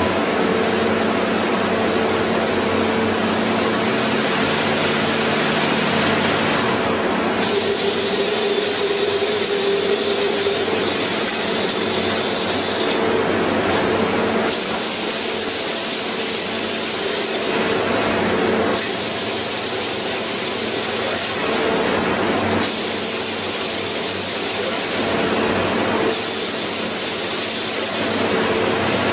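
CNC machine tool running: a steady, loud machining noise with a high whine that cuts in and out every few seconds.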